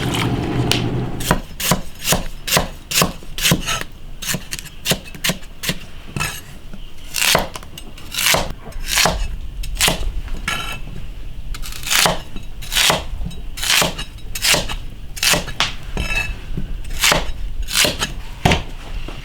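A knife chopping on a wooden cutting board: sharp, separate chops at an uneven pace, about one or two a second, with short pauses.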